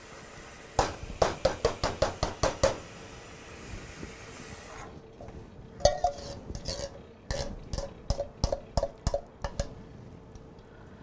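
A metal spoon clinking against metal cookware in two runs of quick strikes, about four a second: a short run near the start and a longer one in the middle. Canned diced tomatoes are being scraped in and stirred into the pot of sweet potato soup.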